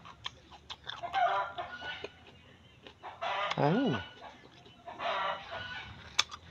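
Chickens clucking in short calls, with one longer call, likely a crow, a little after three seconds in.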